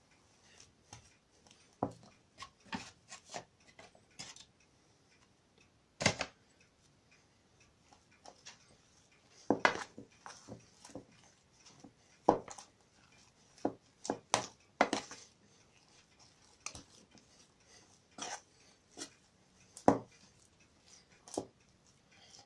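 A spoon knocking and scraping against an enamel bowl while stirring thick curd-cheese dough, as extra flour is worked in. It comes as irregular sharp clicks roughly every second, a few louder than the rest.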